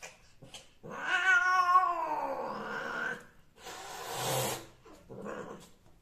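Female cat caterwauling while being mated: a long wavering yowl that rises and falls over about two seconds, then a harsh, noisy outburst about a second later as she twists round on the male, and a shorter call near the end. This is the queen's typical cry during and at the end of mating.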